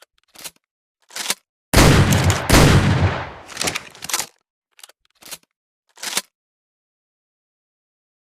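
Double-barrel shotgun sound effect: a few sharp clicks of the action, then two loud shots less than a second apart, one per barrel, then more clicks of the action.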